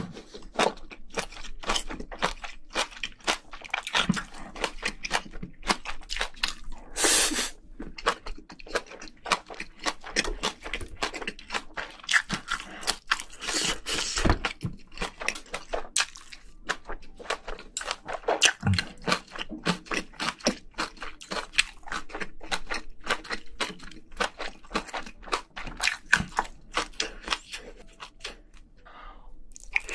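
Close-miked wet chewing, smacking and squelching of spicy braised seafood (haemul-jjim) with bean sprouts and rice, in a dense run of short clicks and small crunches. There are a few louder mouthfuls about a quarter and halfway through.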